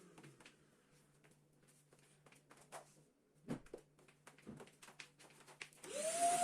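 Light clicks and knocks during a lull, then a vacuum cleaner switched on near the end, its motor whine rising quickly to a steady pitch.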